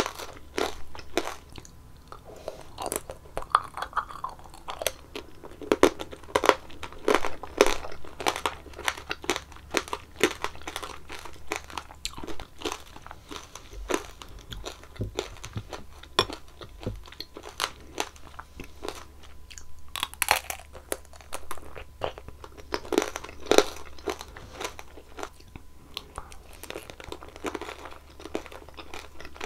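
Strawberry tanghulu being bitten and chewed close to the microphone: the hard candied sugar shell cracks in many sharp crunches, with moister chewing of the strawberry between them.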